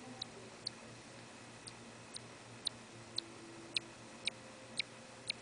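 Steady light ticking, about two ticks a second, in a regular clock-like rhythm.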